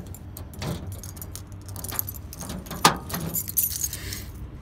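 Handling noise: light rustling and small jingling clicks as the camera is moved along the truck's door, with one sharp click about three seconds in, over a steady low rumble.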